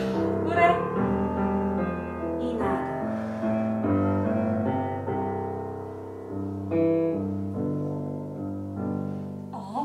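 Piano music played slowly in a low register, with sustained notes and chords. In this game the low music is the cue for the kneeling 'cat back' exercise.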